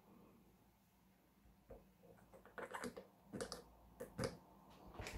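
Faint plastic clicks and light taps, scattered over the last few seconds, as a plastic funnel is handled and lifted out of a handheld steam cleaner's filler opening.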